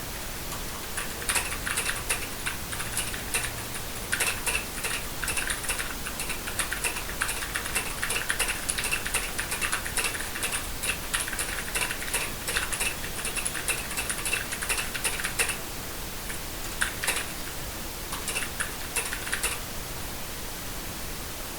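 Fast typing on a computer keyboard: a long run of rapid key clicks, a pause, then two short bursts of keystrokes that end a couple of seconds before the close, over a steady hiss.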